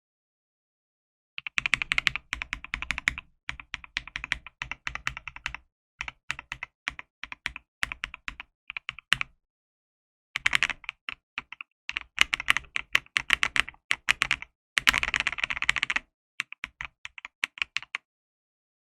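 Mechanical keyboard fitted with Glorious switches being typed on in fast bursts of keystrokes, broken by short pauses; the typing starts about a second and a half in.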